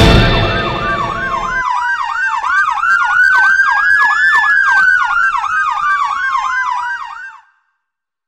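Electronic emergency-vehicle siren with a fast yelping warble, about five cycles a second, layered over a slow wail that rises for about four seconds and then falls. It cuts off abruptly about seven seconds in. Music fades out in the first second and a half.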